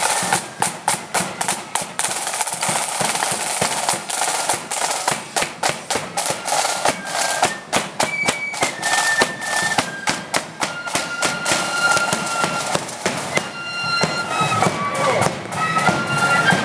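Marching flute band playing as it passes: snare drums beat a fast, busy rhythm, and a flute melody of held high notes comes through clearly in the second half. The drumming thins out near the end while the flutes carry on.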